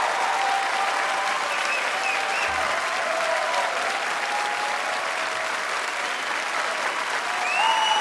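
Concert-hall audience applauding steadily, with a few cheering voices over the clapping.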